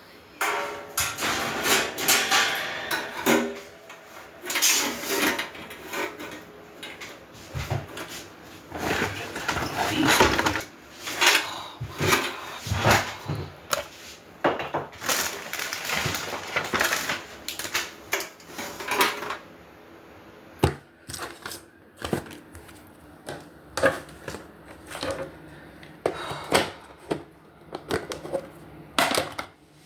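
Irregular clattering and knocking of grill parts and tools being handled and fitted together during assembly, with some scraping and rustling.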